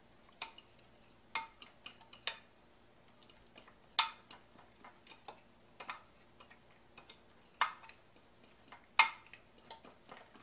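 A utensil clinking and tapping against a mixing bowl as egg-and-herb batter with crushed walnuts is stirred: a dozen or so irregular sharp clicks, the loudest about four seconds in.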